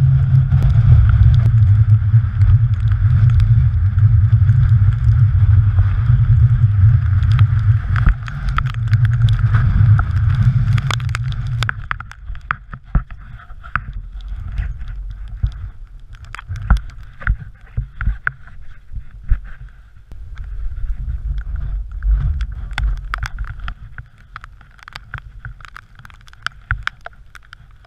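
Strong wind buffeting a GoPro Hero3's microphone: a heavy low rumble that eases about twelve seconds in and then comes and goes in gusts. Scattered knocks and scuffs from scrambling over rock run through it.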